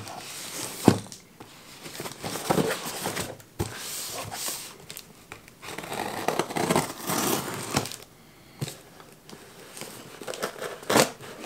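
Small Mora knife slicing through packing tape on a cardboard box: irregular tape tearing and crinkling and blade scraping across cardboard, with scattered knocks as the box is handled, a sharp one about a second in.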